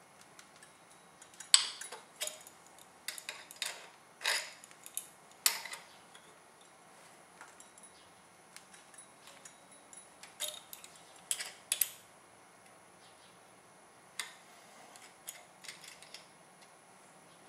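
Irregular metallic clicks and clinks of hand tools against the metal parts of an HPI Baja 5B RC car while a stuck screw is worked on, coming in clusters with short pauses between them. The loudest click is about one and a half seconds in.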